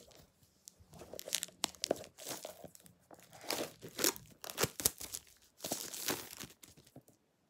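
Clear plastic shrink wrap being torn and peeled off a small cardboard box: irregular crinkling and tearing crackles that die away near the end.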